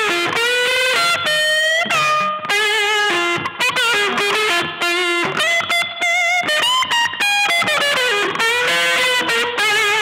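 Electric guitar played through a board of effects pedals: a freestyle lead line of held single notes with wide vibrato and pitch bends.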